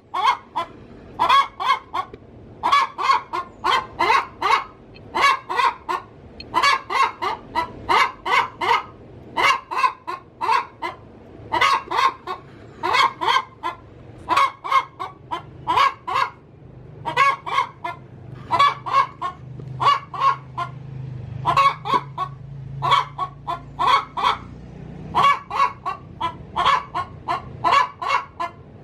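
Domestic hen cackling in a steady stream of short, sharp clucks in quick groups, pausing only briefly between them. This is the hen's cackle around laying an egg.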